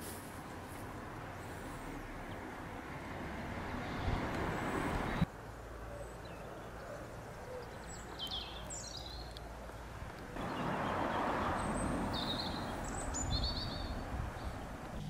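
Outdoor village-street ambience: a steady background hiss of wind and distant traffic that drops abruptly about five seconds in and swells again about ten seconds in. Songbirds chirp a few times around eight seconds in and give a quick run of repeated notes near the end.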